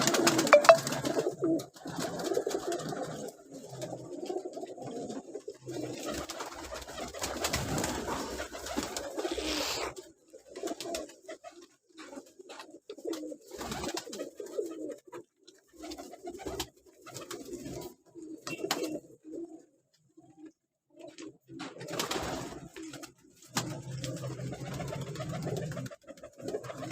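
Domestic pigeons cooing in repeated short bursts, with scattered light clicks and rustles among them.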